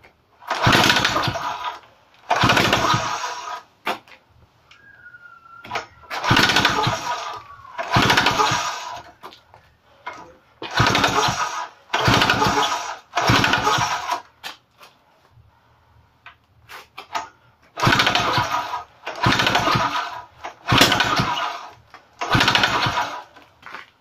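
Pionjär petrol rock drill/breaker, its two-stroke engine hammering the bit into concrete in about eleven short bursts of a second or so each, in groups of two and three, dropping back to a low idle between them.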